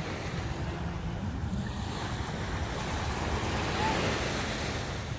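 Sea surf washing onto the beach, with wind rumbling on the microphone; the surf swells a little about four seconds in.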